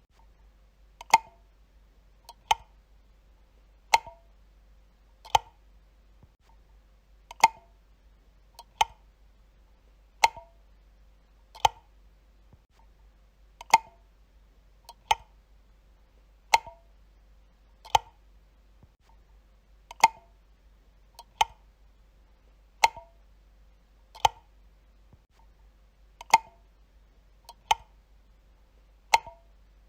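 A light switch being flicked again and again: about twenty sharp single clicks, roughly one every second and a half.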